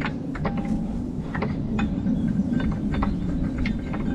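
Light metal clicks and clinks, about a dozen scattered through, as a steel drawbar pin is worked by hand into a bushing in a Massey Ferguson 35's drawbar. They sound over a steady low rumble.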